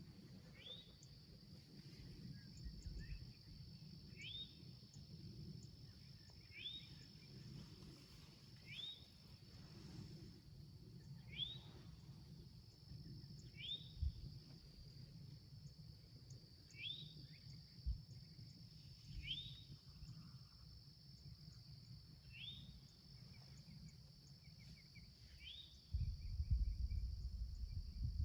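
Quiet outdoor ambience: a steady high insect drone, with a bird repeating one short rising chirp every two seconds or so. Low rustling grows louder near the end.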